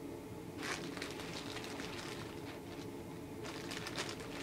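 Clear plastic bags holding plastic model-kit parts crinkling as they are handled, in two spells of crackling, the first starting under a second in and the second about three and a half seconds in. A steady low hum runs underneath.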